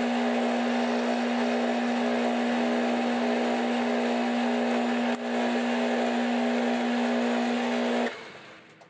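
12-inch Atlas lathe running with a steady motor-and-drive hum while a carbide insert tool faces the end of a solid steel rod. Just past eight seconds the lathe is switched off and the hum dies away as the spindle spins down.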